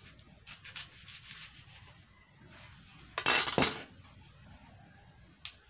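Unripe dragon fruit being pulled apart by hand after being cut around with a knife: faint rustling of its leafy skin scales, then one short, loud tearing crack a little past halfway as the two halves split open.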